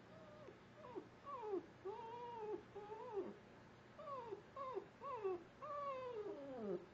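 A dog shut in a wire crate whining and howling: a run of about nine short, wavering cries that each slide down in pitch. The last cry is the longest, drawn out and falling.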